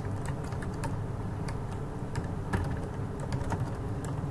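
Keystrokes on a computer keyboard as a name is typed, irregular clicks over a low steady hum.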